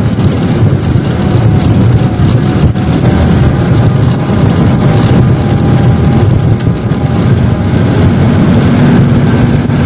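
A vehicle engine running steadily under way, with a continuous rumble of road and travel noise.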